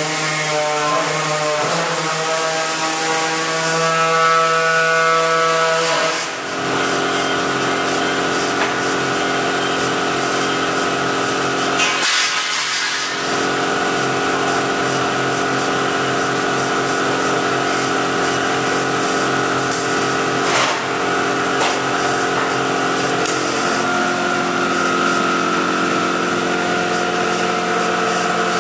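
Shop air tools at work: a pneumatic tool cutting at the spot-welded rear deck filler panel of a 1968 Camaro, fed by a running air compressor. It is a loud mechanical drone of several steady tones that climbs in pitch over the first six seconds, then holds, with brief dips a few times.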